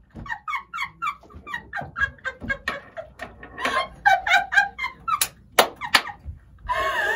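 Two adults, a woman and a man, laughing hard together in a rapid run of "ha ha ha" bursts, with three sharp short knocks near the end.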